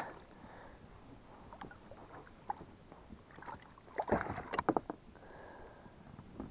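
Light water splashes and small knocks as a pike is hand-lifted out of the river at the side of an inflatable boat, with a quick cluster of sharp clicks and taps about four seconds in as the fish comes over the oar.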